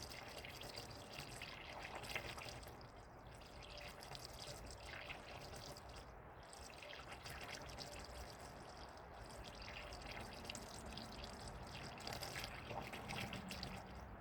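A 50-50 mix of antifreeze and water is poured steadily from a jug into a car's cooling system. It makes a faint, trickling pour.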